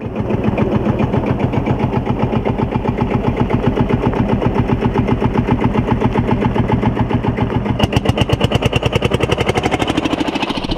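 1949 Field Marshall Series 2's single-cylinder two-stroke diesel engine running under way, a fast, even train of exhaust beats. The beats grow louder and sharper from about eight seconds in as the tractor passes close.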